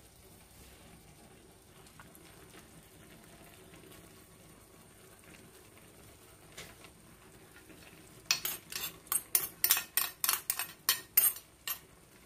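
Faint low background for most of the time. Then, from near the end, a quick run of sharp metal clinks and scrapes, about three a second, as a spoon works against kitchen vessels while roasted nuts go into the brass pan of halwa.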